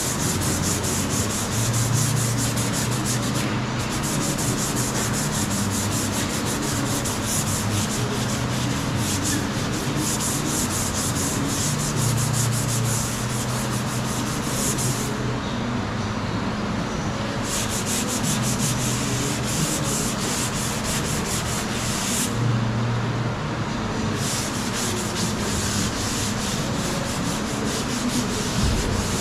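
Sanding of Bondo body filler on a car's quarter panel: a continuous scratchy scrubbing over a low hum. The high scratchy part drops out briefly three times.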